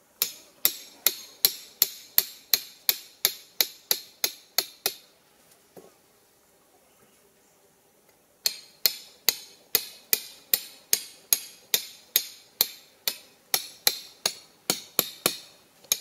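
Hatchet head hammering a steel rebar stake into the ground: sharp metal-on-metal clinks, about two and a half a second, in two long runs with a pause of about three seconds between them.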